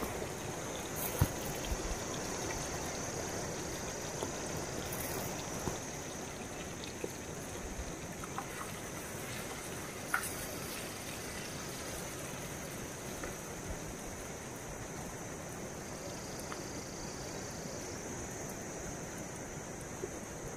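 Steady hiss of a lit gas burner on a small LPG cylinder, with a few light clicks and taps, about a second in and about ten seconds in, as food is picked from the metal pan.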